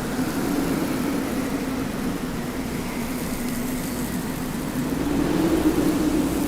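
Desert wind blowing steadily with a low, wavering howl that swells louder about five seconds in.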